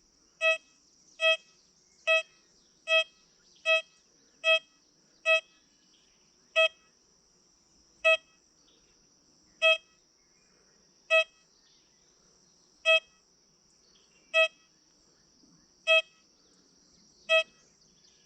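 XP Deus 2 metal detector sounding short, mid-pitched beeps, each one a target signal from a US clad quarter under a fridge magnet as the coil passes over it. There are about fifteen beeps, roughly one a second at first, slowing to about one every second and a half.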